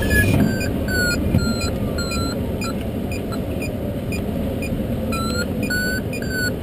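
Glider's audio variometer beeping in short tones about two a second, the pitch shifting from beep to beep, the sign of the glider climbing in rising air. Under it runs a steady rush of airflow.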